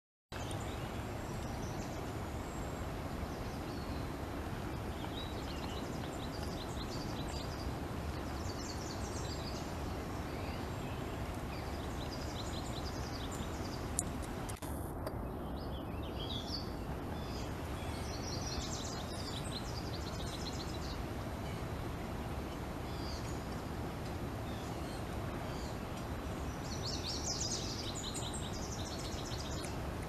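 Steady low background rumble of ambient noise with songbirds chirping and trilling on and off throughout, and a single sharp click about halfway through.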